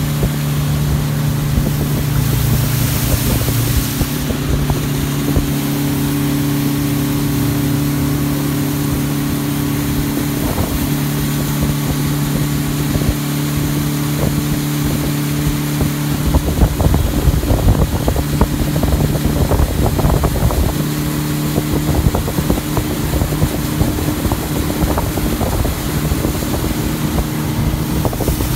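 Speedboat engine running steadily at speed, with wind on the microphone. From about sixteen seconds in, a rougher stretch of irregular knocking and splashing lasts several seconds.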